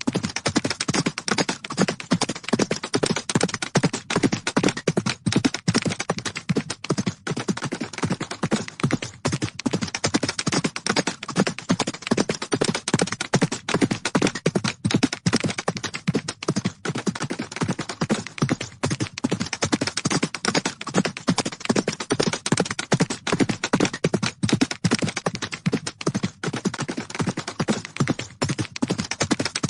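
Hooves of galloping horses: a rapid, unbroken run of hoofbeats, many per second.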